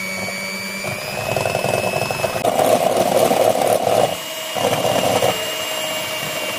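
Electric whisk running at speed in a bowl of egg whites, whipping them toward soft peaks: a steady motor whine, with louder rattling stretches from the beaters about two and a half seconds in and again near five seconds.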